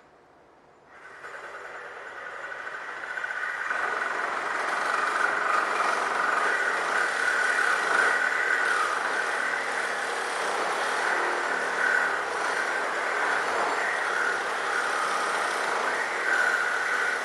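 Reciprocating saw (Sawzall) cutting through a steel weld on a mill frame: a steady, loud, rasping run that starts about a second in and builds over the next few seconds.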